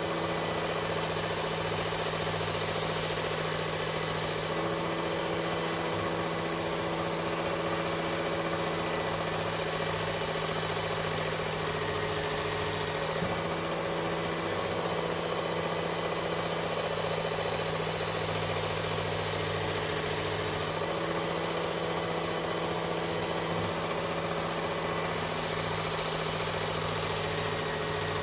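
Work Sharp Ken Onion Edition sharpener with the blade grinding attachment running steadily, its abrasive belt grinding an axe edge. The high grinding hiss swells and fades over about four passes while the motor hum holds steady.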